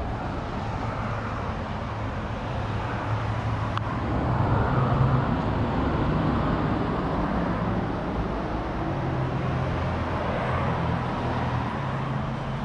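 Steady low rumble of motor-vehicle traffic with a low engine hum running under it.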